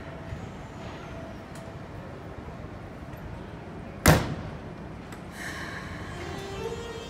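A crew cab door slams shut with a loud bang about four seconds in. Near the end, the Keikyu 1000-series train's Siemens VVVF inverter starts its "singing" scale as the train moves off: steady tones stepping up in pitch one after another.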